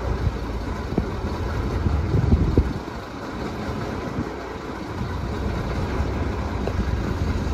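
1955 John Fowler diesel shunting locomotive's engine running at idle with a steady low rumble. It is louder for a moment about two seconds in, then settles.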